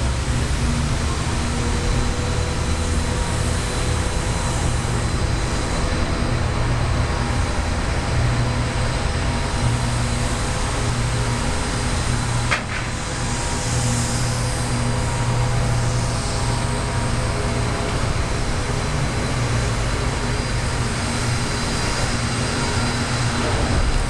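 Steady mechanical drone of running machinery with a strong low hum and a few steady tones above it. A single sharp click about halfway through, with a brief dip in level.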